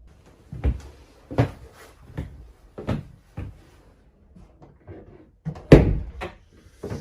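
Footsteps on a hard floor, about one every two-thirds of a second, then a door knocking open and shut loudly near the end.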